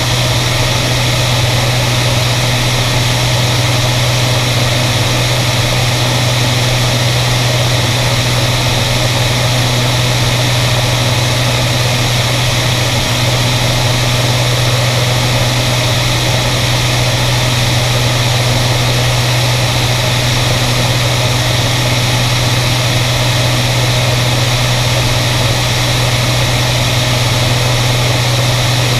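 Beriev Be-103 amphibian's twin Continental IO-360 piston engines and propellers running steadily in cruise flight, a constant low drone, with air rushing past the outside of the hull.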